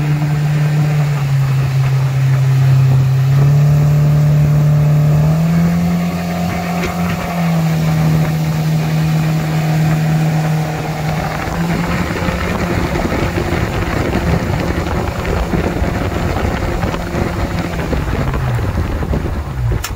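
Mercury 80 Jet outboard (a 115 hp four-stroke) pushing a Solar 555 Super Jet jet boat as it accelerates onto the plane. The engine drone steps up in pitch twice in the first six seconds, then holds steady under a rising rush of water and wind, and its pitch falls away near the end.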